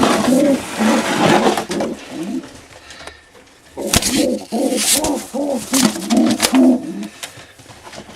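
Racing pigeons cooing: a bout of low, rolling coos at the start, a pause, then a second bout from about four seconds in to about seven seconds.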